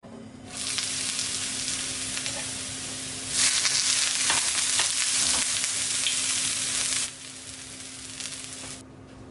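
Hot oil sizzling in a nonstick frying pan, turning to a louder, fuller sizzle as sliced onions are dropped in about three seconds in. The sizzle drops back a little after about seven seconds and fades out near the end.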